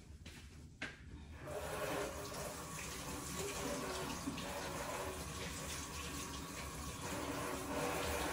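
Kitchen tap running water into a sink, starting about a second and a half in and stopping suddenly near the end, with a short knock just before it starts.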